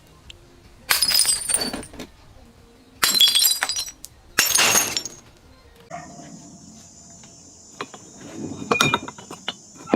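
Glass bottles being smashed: three loud shattering crashes in the first five seconds, each with a spray of tinkling fragments. Softer crunching and clinking of glass follows near the end.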